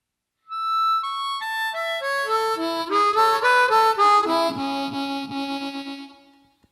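Solo blues harmonica: a run of single notes stepping down in pitch, then a few held double notes, fading out near the end.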